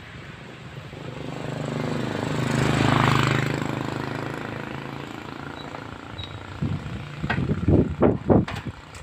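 A motor vehicle passes close by, its engine growing louder to a peak about three seconds in and then fading away. Near the end comes a run of irregular low thumps.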